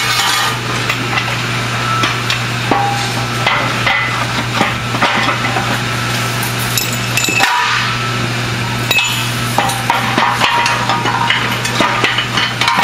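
Irregular metallic knocks and clinks of aluminium platform frame sections and pins being handled and pinned together, over a steady low hum.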